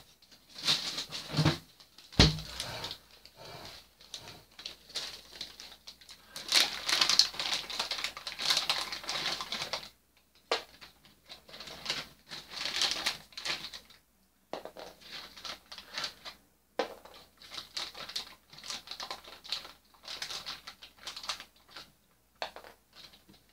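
Refrigerator door shut with a couple of thumps near the start, then a plastic food packet crinkling and rustling irregularly as it is handled and opened, in short crackly bursts with brief pauses.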